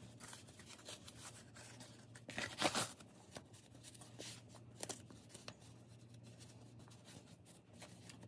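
Faint rustling and scraping of paper and cotton fabric as a sock is handled and stretched over a piece of cardboard, with scattered light clicks and a louder burst of rustling about two and a half seconds in.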